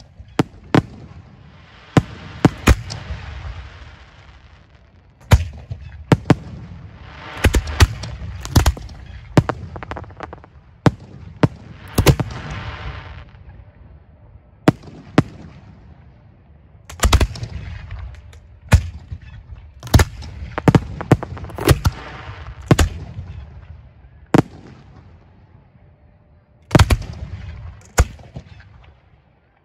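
Professional display fireworks firing from mortar racks: sharp bangs at irregular intervals, some in quick runs of two or three, with stretches of crackling hiss between them.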